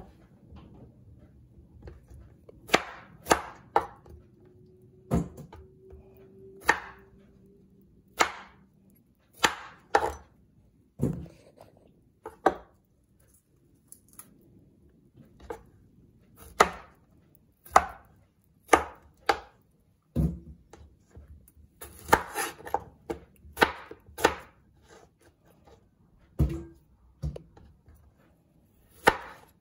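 Chef's knife cutting fruit on a wooden chopping board: irregular sharp knocks of the blade striking the board, some in quick pairs and clusters, with a pause of a few seconds midway.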